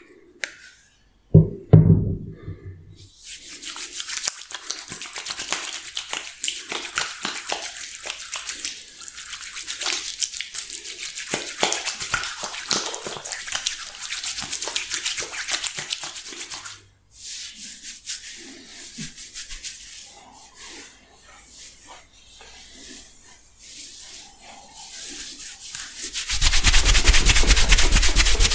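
Oiled palms rubbing together, a dense wet rubbing, with a brief low thump near the start. Near the end, louder steady rubbing as fingers knead oil-soaked hair on the scalp.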